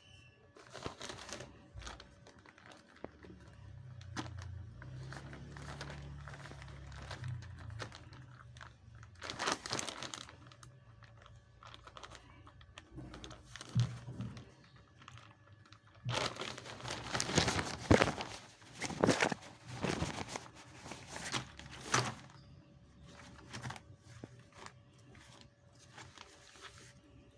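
Packaging being crinkled, rustled and torn open by hand in irregular bursts, loudest and busiest about two-thirds of the way through.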